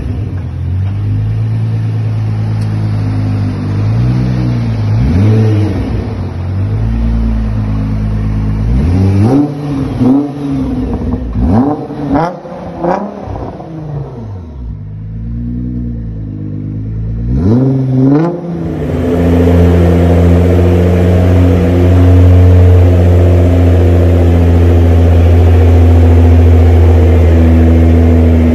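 Nissan GT-R R35's twin-turbo 3.8-litre V6 idling and being revved repeatedly, each throttle blip rising and falling in pitch. After a sudden change about two-thirds of the way in, a louder engine note holds at a steady speed.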